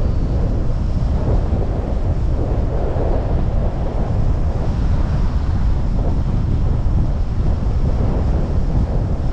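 Wind buffeting the microphone of a helmet-mounted 360 camera while riding an electric scooter at speed: a loud, steady, low rumble of noise.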